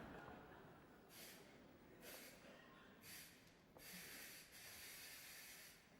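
Near silence broken by short airy hisses of breath, three brief ones about a second apart and then a longer one of about two seconds near the end.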